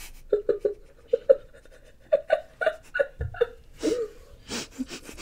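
A string of short, muffled, pitched whimpers from a girl, closed-mouth "mm" sounds of disgust at a gummy she can't bring herself to swallow, with a low thump about three seconds in.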